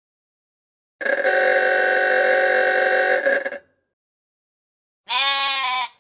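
A 1938 Chevrolet coupe's horn sounding one long steady blast of about two and a half seconds, then, about five seconds in, a lamb bleating once with a wavering pitch.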